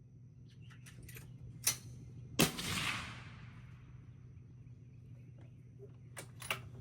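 A single rifle shot from a Fierce Firearms Carbon Rogue chambered in .22 Creedmoor about two and a half seconds in, its report dying away over about a second. A few light clicks come before and after it.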